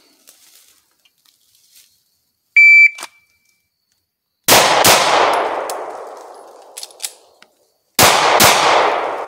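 A shot timer's short start beep, then two quick pistol shots that echo and die away over a couple of seconds. A pause of about three seconds with faint clicks follows, as a planted dummy round is cleared, and a quick string of pistol shots resumes near the end.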